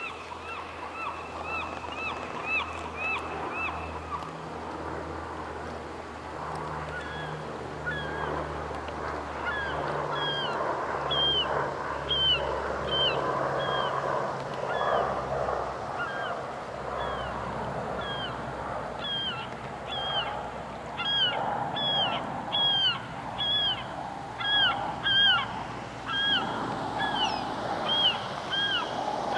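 Birds calling: runs of short, high calls repeated about twice a second, with several callers overlapping in the second half. A steady rushing wash runs beneath them.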